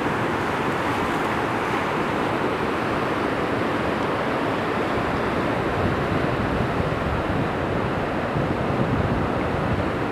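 River rapids: white water rushing steadily over rocks.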